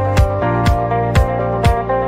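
Upbeat electronic background music with a steady kick drum about twice a second over sustained bass and chords.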